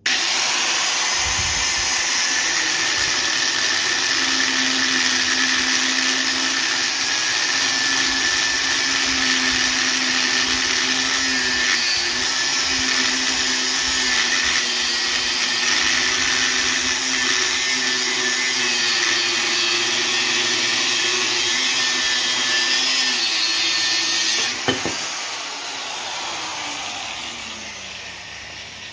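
Ryobi angle grinder with a cut-off disc cutting through a ball joint welded to a stub axle: it comes up to speed at once and runs loud and steady with a high whine. About 24 seconds in it is switched off with a click and winds down, its whine falling as it fades.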